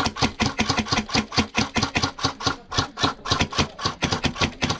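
MTW HPA airsoft rifle with a Wolverine Inferno engine firing a long full-auto stream: an even, rapid run of sharp shots at about eight a second.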